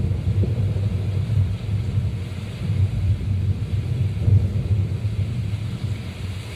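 Low rolling rumble of thunder over a steady hiss of rain.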